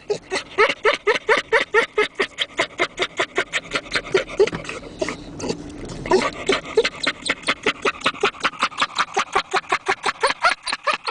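A dog's panting "laugh": quick pitched huffs, about six or seven a second, with a short break near the middle before the fast rhythm picks up again.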